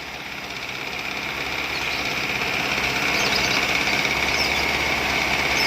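Engine that had stood unused for about five years running steadily again after being revived, growing gradually louder.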